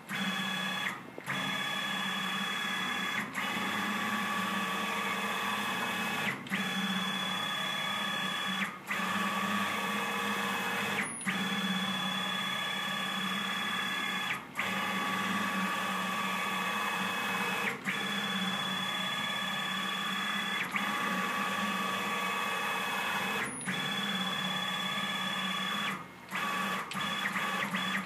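Z-axis drive motor of a CNC-converted Grizzly G0704 milling machine moving the head along the column, a steady whine with several pitches. It stops briefly about every two to three seconds between moves.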